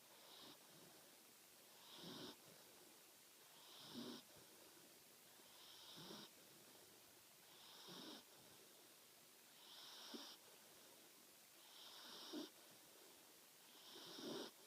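A Labradoodle puppy snoring faintly in her sleep, one short snore about every two seconds, each swelling to a brief peak as she breathes in.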